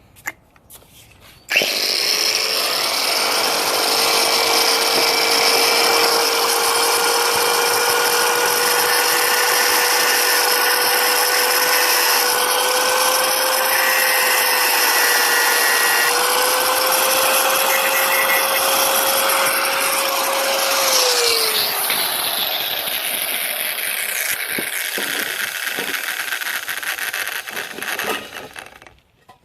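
Handheld power tool running steadily on a seized exhaust manifold bolt, its motor whine steady until about twenty seconds in, when the pitch drops away; the sound stops shortly before the end.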